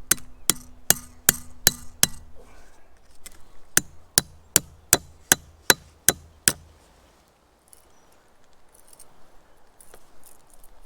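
Hammer blows in two quick, steady runs of about two and a half strikes a second, with a short pause between them; each strike is sharp with a brief ring.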